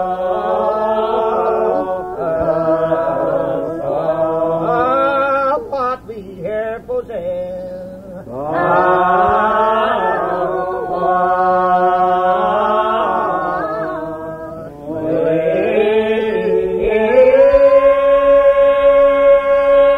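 Unaccompanied hymn singing in the slow Old Regular Baptist lined-out style, voices drawing each syllable out into long, slowly bending notes, heard through an old cassette recording. The phrase breaks off briefly twice, and near the end a long note is held.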